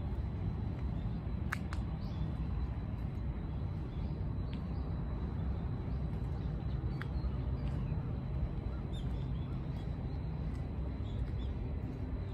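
Scattered bird calls, a few short chirps here and there, over a steady low rumble.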